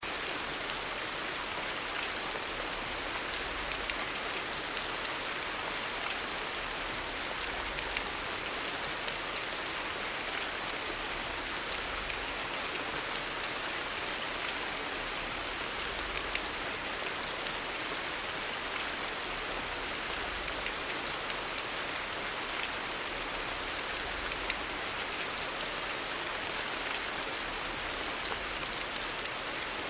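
Steady rain falling on hard surfaces, an even hiss with scattered drop ticks.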